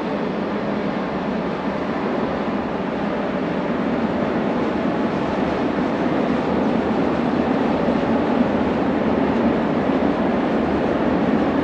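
Recorded sound of a real train running, a steady rumble that grows slowly louder.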